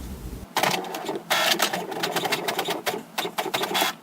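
HP Smart Tank inkjet printer starting up about half a second in: rapid mechanical clattering of the paper feed and print carriage as it prints the settings and status summary page.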